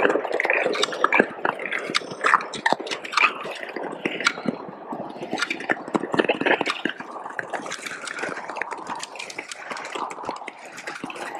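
Ice skates scraping and gliding across frozen lake ice, with many short sharp cracks and pings from the ice as it "talks" under the skaters' weight.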